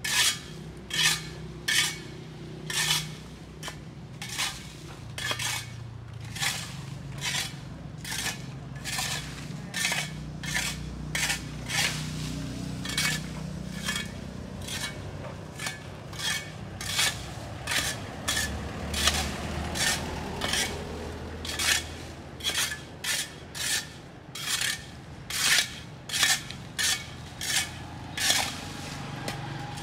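Hand tool scraping across sidewalk pavement in short, repeated strokes, about one to two a second, with a low steady hum beneath.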